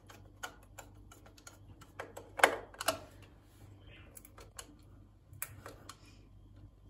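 Screwdriver driving the cover-plate screw into a plastic wall socket: a run of small irregular clicks and ticks, with a couple of louder knocks about two and a half seconds in.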